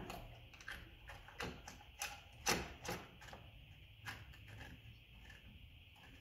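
Irregular small clicks and taps of washers and cable terminals being handled and fitted onto a golf cart's contact board assembly. About a dozen sharp ticks come in the first four seconds, the loudest about two and a half seconds in, then they thin out.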